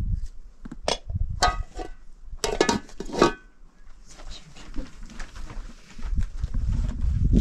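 Metal cookware clinking and clattering in a few short ringing bursts in the first half, then a low rumbling noise near the end.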